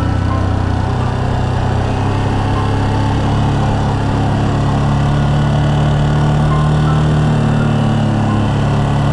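Yamaha Serow 250's air-cooled single-cylinder four-stroke engine running under way at a steady cruising speed, its pitch shifting a little up and down a few times with the throttle.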